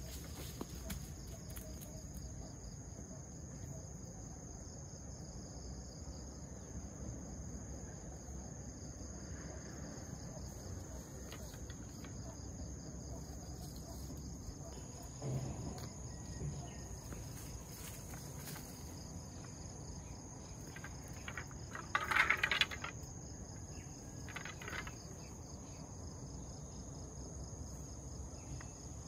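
Insects chirring steadily at a high pitch. A short louder rattling sound comes about three-quarters of the way through.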